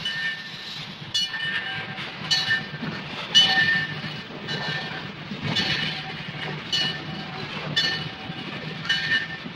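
Train running, a steady low rumble with a clanking, ringing metallic beat about once a second.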